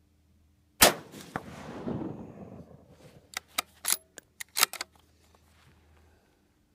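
A single rifle shot from a Savage 10FP bolt-action in .223 Remington, about a second in, with its echo dying away over the next two seconds. It is followed by a quick run of sharp metallic clicks as the bolt is worked to eject the spent case and chamber the next round.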